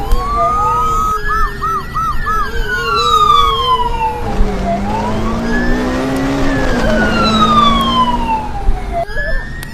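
Police car sirens, several overlapping: slow wails that rise and fall over a few seconds, layered with a faster warbling tone and a short run of quick whoops.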